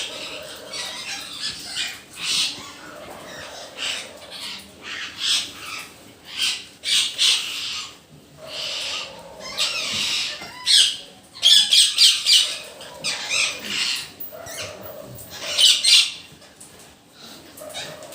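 A flock of parrots calling at dusk: many harsh, overlapping screeches in irregular bursts, loudest about two-thirds of the way through.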